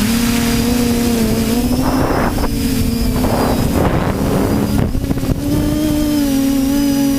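TBS Discovery quadcopter's electric motors and propellers whining steadily in flight, the pitch shifting slightly with throttle. Wind rushes over the onboard microphone in gusts through the middle.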